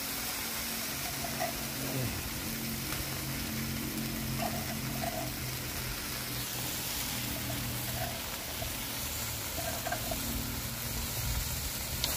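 Spice paste frying in hot oil in a wok, a steady sizzle, over a low steady hum.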